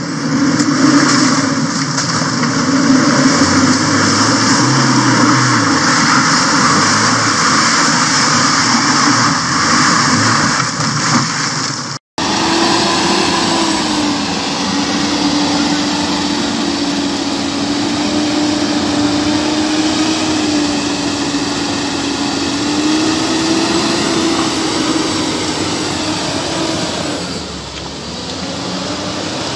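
A 4x4 pickup's engine running hard under load as it drives through deep mud. About twelve seconds in there is a cut to a Mitsubishi Triton pickup, whose engine holds a steady high note that wavers a little as it pushes through the mud.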